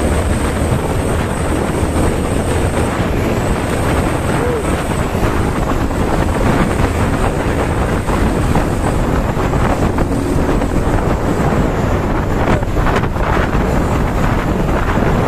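Road noise of vehicles driving at speed, engines and tyres, with wind buffeting the microphone and a thin high whine. A few short clattering knocks come about three quarters of the way through.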